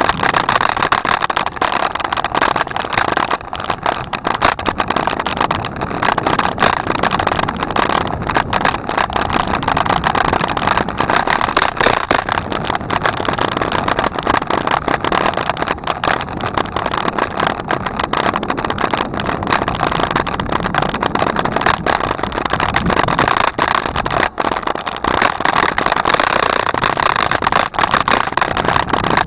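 Steady riding noise from a moving bicycle: tyres on the path and the bike and camera mount rattling, with many small clicks throughout.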